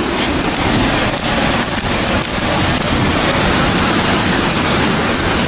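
Steady, loud rushing roar of High Force, a large waterfall on the River Tees, heard up close.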